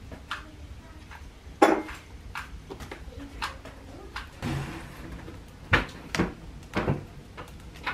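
Handling plastic slide mounts and film strips on a table: a series of sharp, irregular clicks and snaps as film frames are fitted into slide frames and pressed shut, the loudest about a second and a half in.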